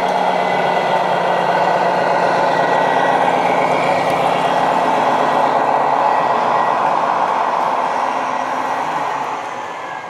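Radio-controlled MAN truck with a multi-axle flatbed trailer driving, its sound module giving a steady truck-engine drone with a faint high whine, fading away near the end.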